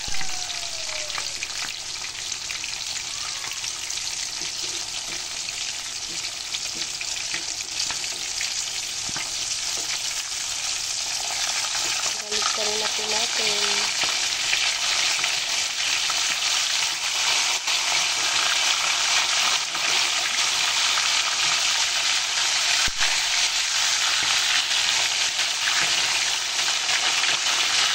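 Whole tilapia deep-frying in a pan of hot oil: a steady sizzle that grows louder after about twelve seconds, with occasional sharp pops and clicks.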